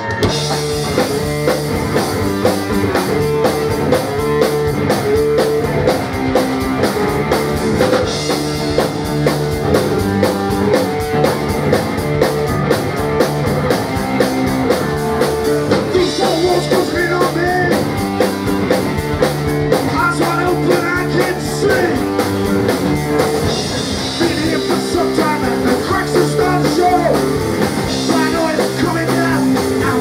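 Live rock band, electric guitars, bass and drum kit, kicking straight into a song, with a man singing from about halfway through.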